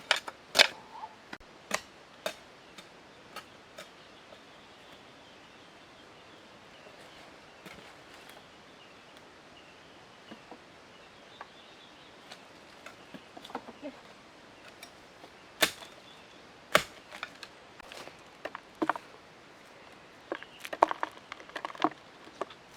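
Irregular sharp knocks and clicks, like handwork with wood or a tool: a few loud strikes in the first two seconds, a quiet stretch with scattered faint ticks, then louder strikes again in the last few seconds.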